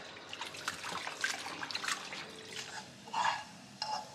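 Water running from a tap and splashing and dripping into a sink, with many small irregular splashes. Two short louder sounds come about three and four seconds in.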